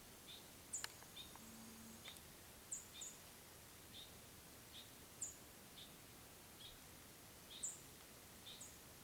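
Quiet woods with small birds chirping faintly: short chip notes repeating about once a second, mixed with a few sharper, higher falling chirps.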